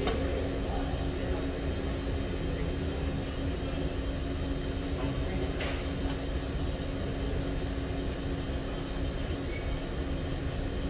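A steady low rumble and hum with one constant tone running through it, like a running machine or ventilation; a faint click about halfway through.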